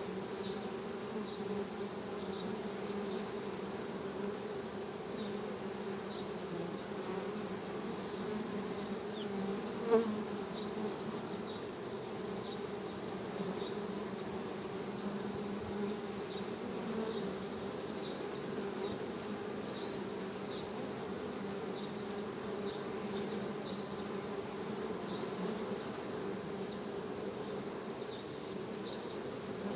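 Honeybees buzzing in a steady, wavering drone, with one brief louder swell about ten seconds in.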